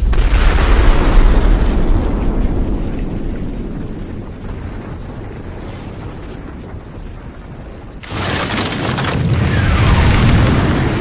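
Anime battle sound effects: a heavy explosion boom that rumbles and fades over several seconds, then a second sudden loud blast about eight seconds in that swells and slowly dies away.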